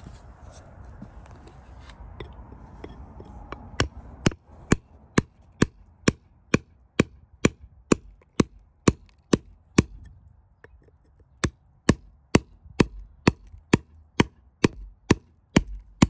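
Hammer striking a steel chisel held against a stone nodule to split it open, a steady run of sharp taps about two a second. The taps start about four seconds in after some handling rustle, with a short break about two-thirds through.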